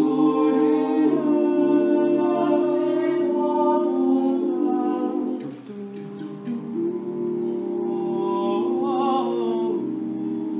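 All-male a cappella group singing slow, held chords in close harmony, the chords shifting every second or two. It grows softer about halfway through, and near the end a higher voice with a wavering vibrato stands out above the chords.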